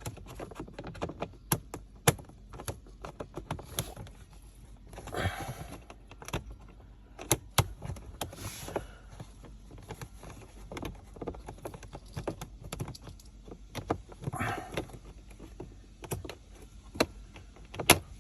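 Hard plastic parts of a car's cabin air filter housing clicking, tapping and scraping as the filter tray and its cover are handled and worked back into place. There are many separate clicks, three short scraping rubs, and a sharp click near the end.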